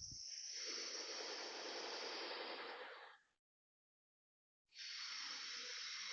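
Construction work noise: a hissing, rushing sound that runs for about three seconds and stops abruptly, then starts again about a second and a half later.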